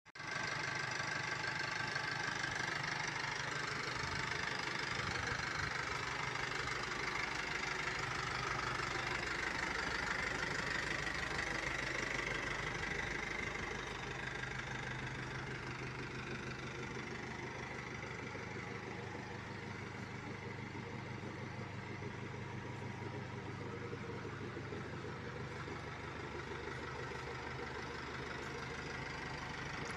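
Isuzu Elf NHR55 four-cylinder diesel engine idling steadily with an even diesel clatter, a little quieter from about halfway through. The seller presents the engine as healthy.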